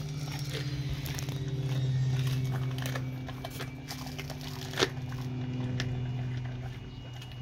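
A dog chewing a raw Spanish mackerel head, with irregular crunches and clicks of teeth on fish bone, the sharpest about five seconds in. A steady low hum runs underneath.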